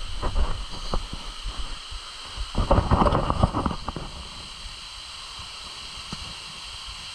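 Low rumbling and scattered knocks on the microphone, with a louder rush of noise from about two and a half seconds in that lasts over a second before settling back to a steady hiss.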